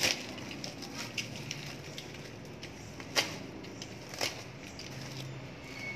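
Plastic parcel wrapping and bubble wrap crinkling and crackling as a package is cut open with a utility knife, with three sharp snaps, the loudest a little after three seconds in.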